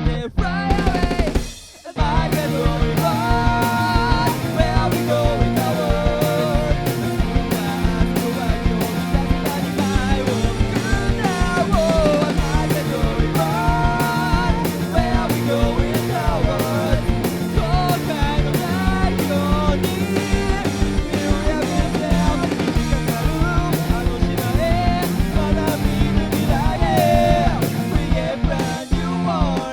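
Instrumental passage of a rock song: drum kit with bass drum keeping a steady beat under bass and a melodic lead line. The band cuts out briefly about two seconds in, then comes back in full.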